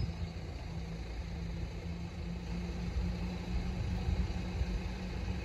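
Low, steady rumble of an idling engine, with a faint constant hum.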